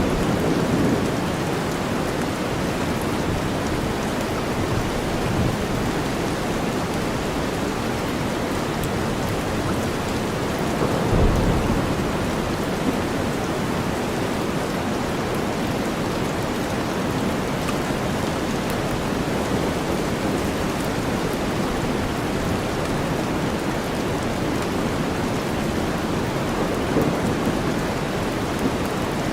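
Steady rainstorm mixed with deep white noise, an even hiss with no letup. About a third of the way through there is a brief low rumble.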